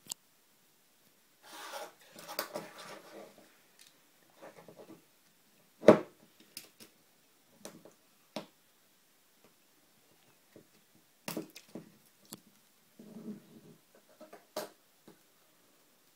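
Handling the iPod Touch's clear plastic retail case and cutting it open with a utility knife on a wooden table: scattered rustles, scrapes, taps and clicks, with one sharp knock about six seconds in.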